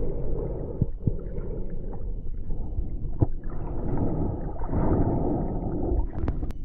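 Muffled underwater noise from a camera held under the surface of a river, with a low rumble of moving water. A few sharp clicks sound about a second in, about three seconds in, and near the end.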